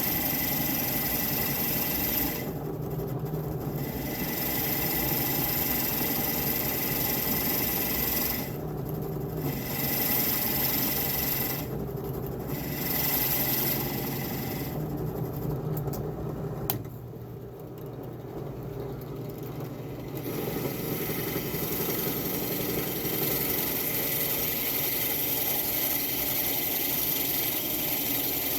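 Steady rasping of wood being worked by a tool, with several brief breaks in the hissy top end and one sharp click about 17 seconds in.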